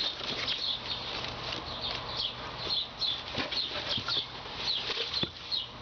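Birds chirping over and over in short, high, downward-sliding notes, with scattered clicks and rustles of cardboard packaging being handled.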